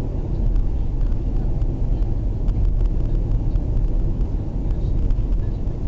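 Steady low rumble of a moving car, engine and tyre noise heard from inside the cabin.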